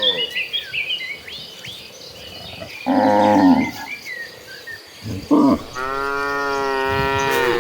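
Cows mooing: a call about three seconds in, a brief one after five seconds, then a long, drawn-out moo near the end. Small birds chirp in the first couple of seconds.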